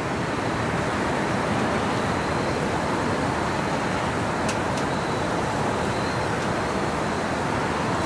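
Steady, even rushing background noise outdoors, with a couple of faint clicks about four and a half seconds in.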